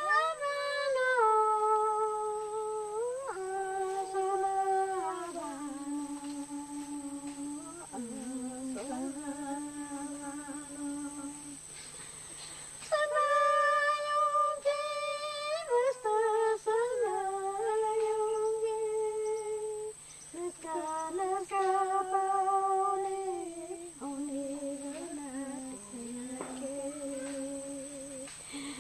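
A single voice sings a Shipibo shaman's sacred chant (an icaro) in slow, long-held notes that glide up and down between pitches. It breaks off briefly about 12 seconds in, then goes on with a second phrase.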